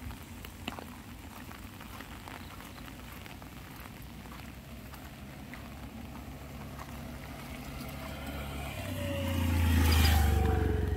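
Light rain pattering on an umbrella, with scattered louder drops. Near the end a motor vehicle drives past, its engine growing loudest about ten seconds in, with its pitch dropping as it goes by.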